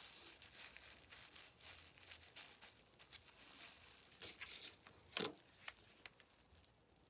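Faint rustling and crinkling of a sock stuffed with a plastic bag as it is handled and folded over, with a few soft clicks and taps. The loudest comes about five seconds in.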